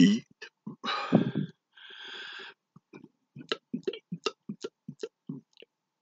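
A man's belch voicing a counted number about a second in, followed by a short breath, then a run of small throat and mouth clicks as he swallows air for the next burp.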